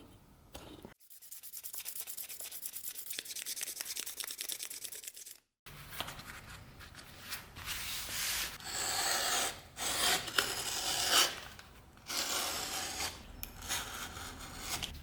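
Abrasive rubbing strokes worked by hand on the knife: a fast, even run of fine strokes, then, after a sudden break about five and a half seconds in, slower and louder irregular strokes.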